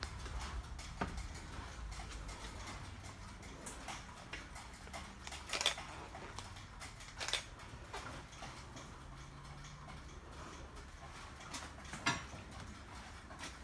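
Footsteps and scattered small knocks and clicks of someone walking through a railroad car, with three louder knocks, one about halfway, one shortly after, and one near the end, over a low steady hum.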